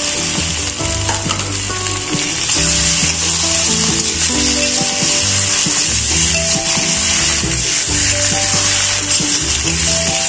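Jackfruit pieces sizzling in hot oil and spice paste in a wok while a metal spatula stirs them, with a steady frying hiss and short scrapes of the spatula. Background music with a simple melody plays over it.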